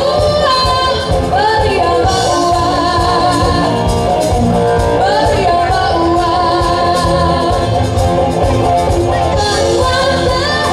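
Live pop-rock band playing loudly: a singer sings a melody into a microphone over electric bass guitar and a drum kit keeping a steady beat.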